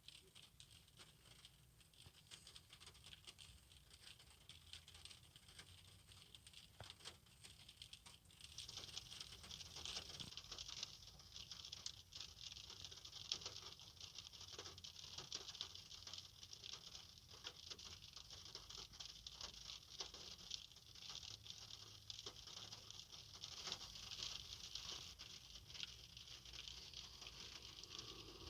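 Raindrops pattering on a car windshield, a dense spray of small taps; the rain gets noticeably heavier about eight seconds in and keeps up steadily after that.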